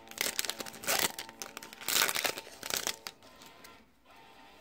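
Foil-lined wrapper of a Magic: The Gathering booster pack crinkling as it is torn open and pulled apart, four short crackles in the first three seconds, then quieter.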